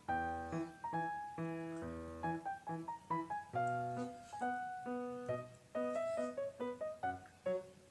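Background music: a light tune of short piano notes over a bass line.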